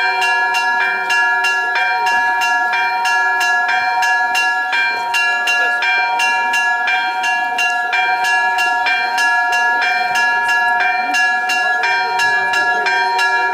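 Orthodox church bells ringing a fast festive chime: smaller bells struck in a steady rhythm about three times a second over the sustained hum of the larger bells.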